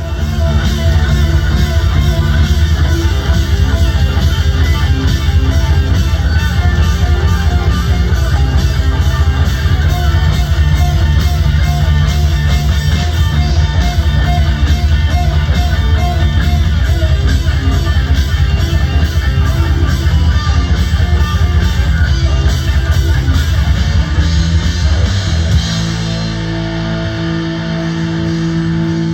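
Rock band playing loud and live, with distorted electric guitar, bass and a drum kit. About 25 seconds in the drums stop and the guitar and bass hold ringing notes.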